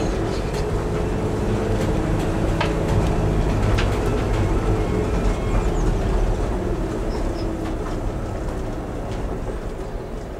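Steady low running hum of vehicle engines and wheels, heard from inside a car cabin, slowly fading toward the end.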